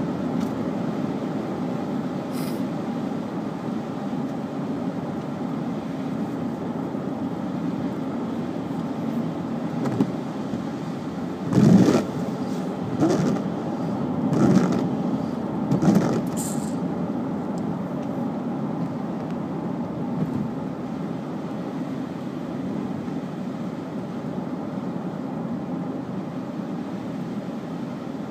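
Steady road and engine drone heard inside a moving car. A few short, louder rushes of noise come in the middle, the loudest about twelve seconds in.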